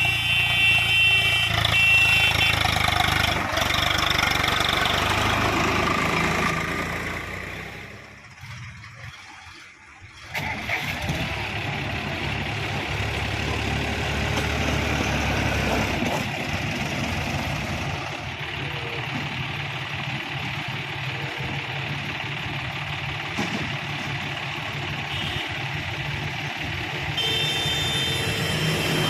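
Heavy diesel machinery engine running steadily. It fades down about seven seconds in, drops low for a couple of seconds, then comes back suddenly and runs on.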